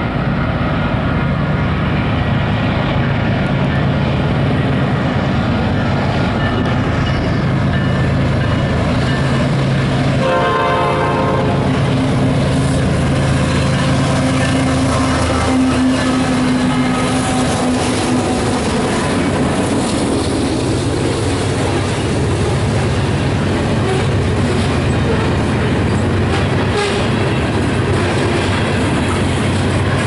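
Canadian Pacific GE diesel freight locomotives running as they approach, with one air-horn blast of about two seconds about ten seconds in. The locomotives then pass close by and loaded grain hopper cars roll past, wheels clicking on the rails.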